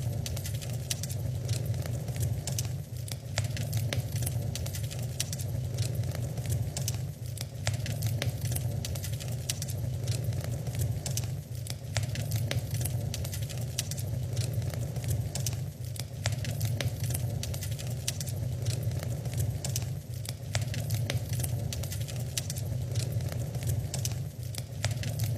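Wood fire burning in a fireplace, crackling with frequent sharp pops over a steady low rumble.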